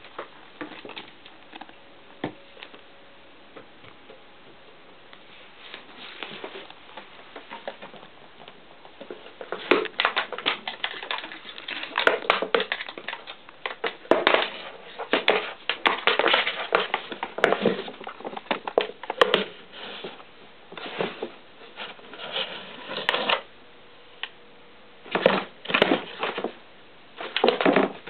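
A cat in a cardboard box swatting and clawing at a cat-teaser wand: scratching, scraping and rustling of cardboard with taps. It comes in clusters of quick strokes, sparse at first and busy from about a third of the way in.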